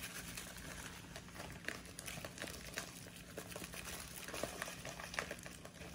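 Soft rustling of a plastic bag of brown sugar, with light ticks and patter as the sugar is shaken into a metal measuring spoon, over a faint steady low hum.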